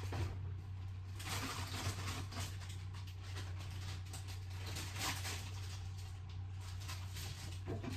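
Quiet kitchen room tone: a steady low hum with a few faint knocks and rustles.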